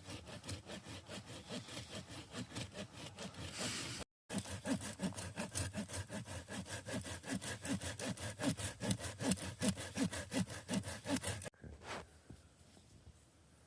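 Hand saw cutting through a piece of firewood in quick back-and-forth strokes, about three a second. The sawing breaks off for a moment about four seconds in, then goes on and stops abruptly near the end.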